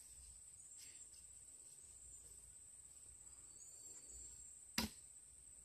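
Faint steady chirring of crickets, then about five seconds in a single sharp impact as the thrown Cold Steel Assegai spear strikes its target.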